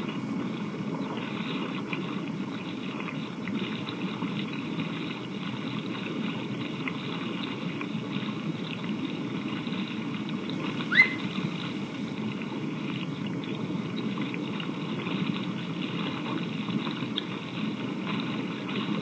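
Rushing river rapids: a steady churning water noise. A brief rising chirp sounds once, a little past the middle.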